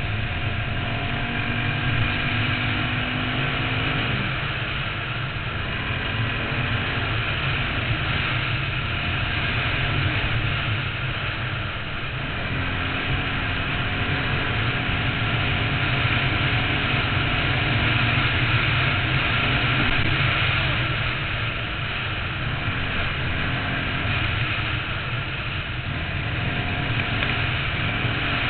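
Honda Rincon ATV's single-cylinder engine running steadily under way on a trail, with a deep rumble and an engine note that wavers a little as the speed changes.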